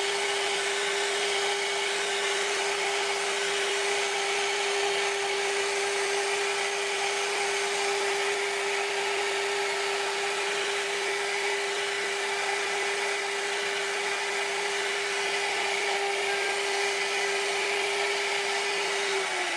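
CNC router spindle running at a steady high speed with a constant whine while its carving bit cuts a floral relief into a wooden door panel, with steady hissing cutting noise.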